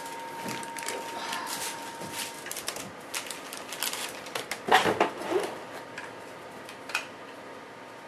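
Plastic packaging being handled and unwrapped, a crackle of crinkles and small clicks, with a louder burst of crinkling about five seconds in.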